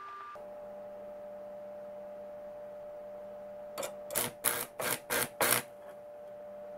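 A 100 V household AC arc welder's stick electrode is scratched against a steel plate to strike an arc. A little under four seconds in come about five short crackling bursts of arc, each going out almost at once, as happens when the supply voltage is low. A steady hum runs underneath.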